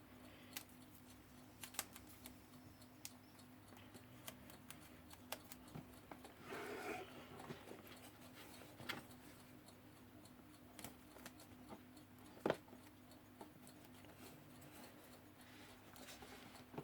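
Faint, scattered small clicks and a brief rustle about seven seconds in: handling sounds of tape being worked onto an alarm clock to hold its glass.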